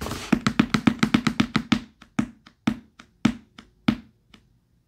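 Hands drumming on the lid of a cardboard box: a quick roll of about seven hits a second for nearly two seconds, then slower, scattered taps, each with the same low note.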